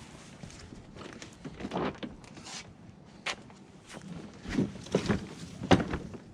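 Irregular knocks and clatters of things being handled and set down, with several sharper, louder knocks in the second half.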